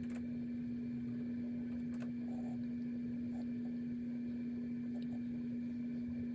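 A steady low hum with one constant pitch, and a few faint clicks, about two seconds apart near the start.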